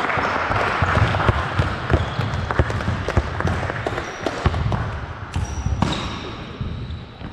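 Several basketballs dribbled at once on a hardwood gym floor: many irregular, overlapping bounces, with a few short high squeaks near the end.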